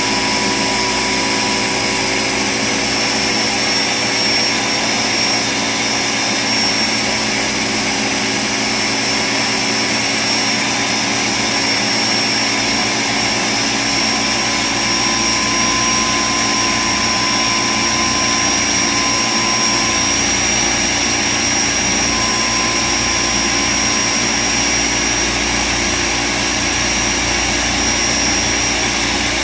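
Ninja Professional 1000-watt countertop blender running steadily, grinding roasted peanuts into peanut butter paste. The motor noise stays constant, with a steady high whine over it.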